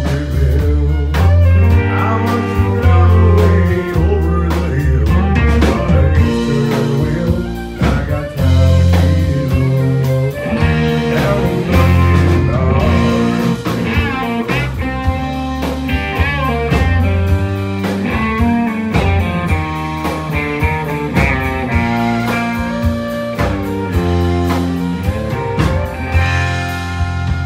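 Live country band playing a song on electric guitar, acoustic guitar and fiddle over a steady beat and bass, with some singing.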